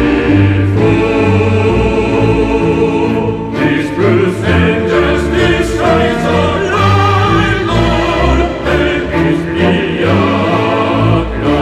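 Background music: a choir singing over an orchestra.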